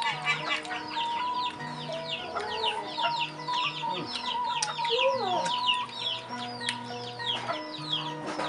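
Rapid high chirping, many short falling chirps a second, over background music with held low notes.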